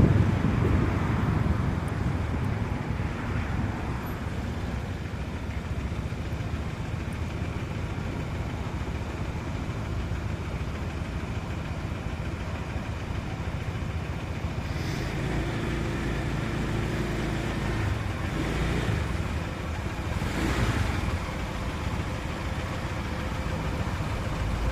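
A motor vehicle engine running steadily on the move, swelling briefly a couple of times.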